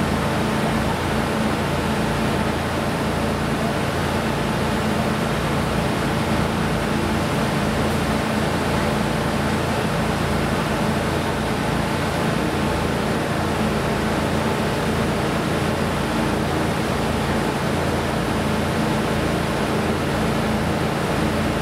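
Steady railway-station platform ambience: a constant mechanical hum under an even rush of noise, with no train passing.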